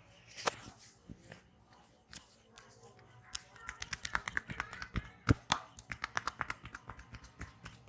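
A quick series of sharp snaps and clicks from a barber's hands working a customer's head in an Indian head massage. A few single clicks come first, then from about three seconds in they come several a second, the loudest about five seconds in.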